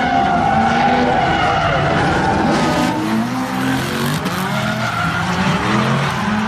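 Drift cars sliding: engines revving up and down over the scrub and squeal of the tyres. The sound changes abruptly about three seconds in to a second group of cars drifting together.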